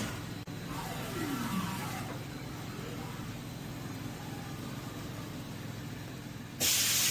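Haas UMC-500 five-axis machining centre with an IntraLoad pallet changer running an automatic pallet swap: a steady machine hum with a falling motor whine about a second in, then a loud burst of hissing air near the end.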